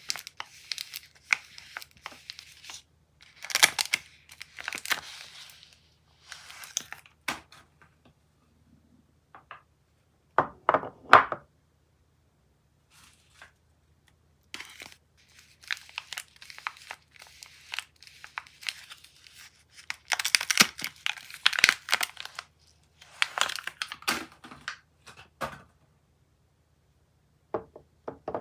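Soap wrappers being torn open and crinkled by hand in bursts of crackling, with a loud cluster of sharp snaps about ten seconds in.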